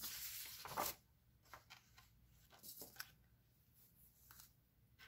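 A sheet of paper sliding across a desk, a short rustle in the first second, followed by a few faint light taps and paper sounds.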